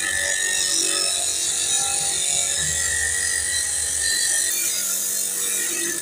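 Abrasive cut-off disc on an electric motor grinding into the metal end fitting of a hydraulic hose: a loud, steady, high-pitched grinding hiss with a thin ringing tone, easing off near the end.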